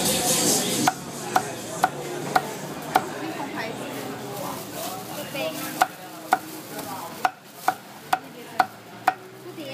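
Cleaver chopping through grilled meat on a wooden chopping block: sharp knocks about two a second, in two runs with a pause of a few seconds between.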